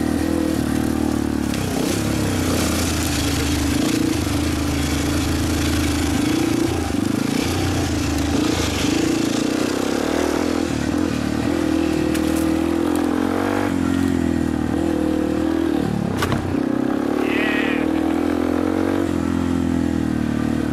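Dirt bike engine running while riding, the revs dropping and picking up again every few seconds as the throttle is rolled off and back on.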